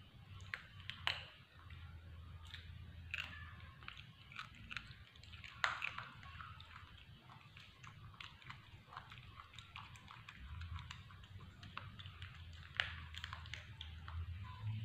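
Baby macaque biting and chewing food: faint, irregular crunchy clicks. A low steady hum runs underneath.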